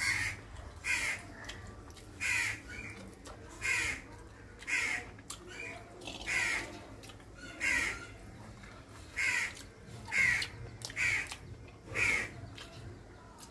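Crows cawing over and over, about one caw a second.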